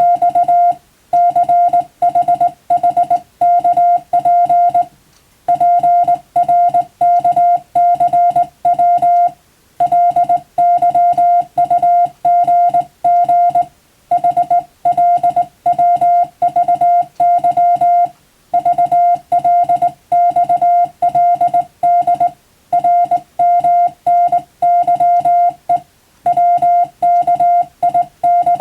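Morse code sent as a single steady beeping tone, keyed in quick dots and dashes, with a short pause about every four seconds between words or code groups.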